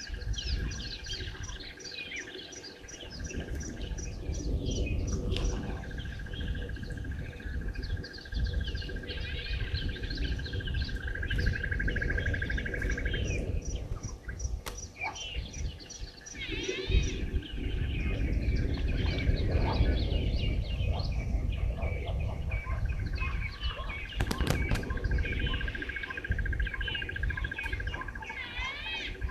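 Bushveld bird chorus: many birds chirping and whistling over one another, with a steady high trill that drops out and returns a few times. A low rumbling noise runs underneath and is loudest in the second half.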